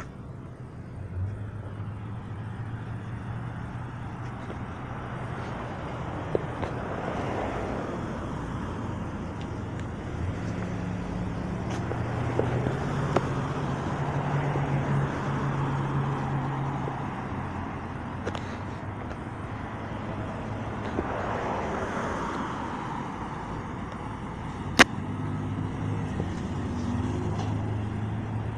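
Street traffic: a few cars pass by one after another, each swelling and fading, over a low steady engine hum. A single sharp click near the end.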